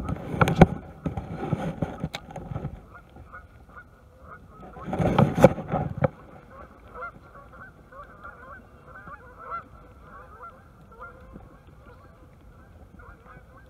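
Waterfowl honking over and over. There are two loud bursts of noise, one at the start and one about five seconds in.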